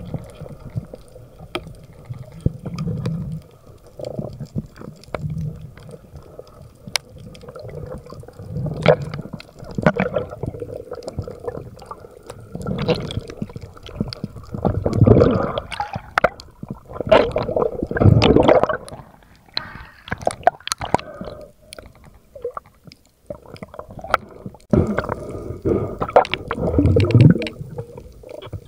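Water gurgling and sloshing around a spearfisher's camera, in irregular surges with scattered sharp clicks and knocks; the loudest surges come in the middle and near the end.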